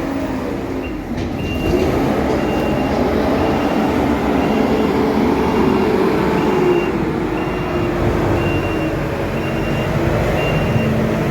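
Heavy farm machine's diesel engine running, its note rising and falling, with a reversing alarm beeping about twice a second from about a second and a half in.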